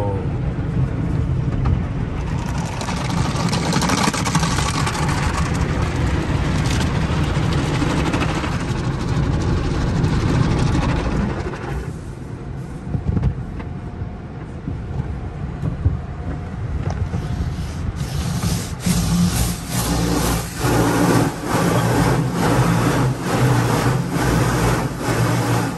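Automatic car wash working over a pickup truck, heard from inside the cabin: a loud, steady rush of spray and washing over a low rumble, quieter for a few seconds midway. Over the last third comes a run of repeated slaps against the body.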